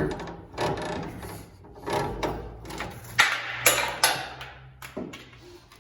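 Metal suspension parts and hand tools clanking and knocking in a series of separate sharp knocks as a front suspension component is pushed down and guided onto its mounting bolts.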